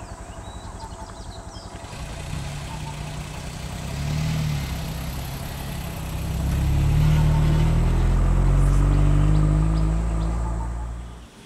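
A vehicle engine idling, then running louder with a slowly rising pitch over several seconds; it cuts off suddenly near the end.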